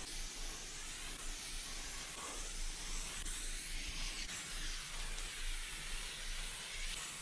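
Aerosol spray-paint can spraying in a steady hiss as paint is laid onto a wall.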